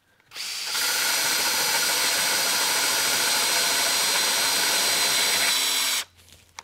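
Festool cordless drill spinning a Forstner bit through a poplar board, boring the hole from the second side so it exits without tear-out. A steady motor whine with cutting noise that builds up just after the start and stops suddenly near the end.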